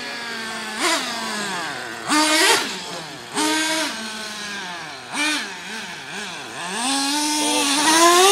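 Small two-stroke engine of a gas-powered RC truck, running between idle and several short throttle bursts, its pitch jumping up and falling back each time, then a long rising rev near the end.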